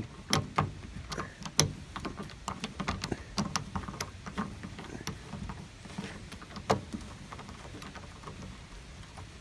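A seized, rusted screw being turned out of sheet metal with a hand screwdriver: irregular small metallic clicks and scrapes as it backs out, a few louder ones along the way.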